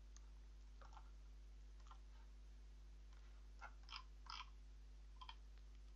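Near silence: a low steady hum with a few faint, short computer-mouse clicks scattered through.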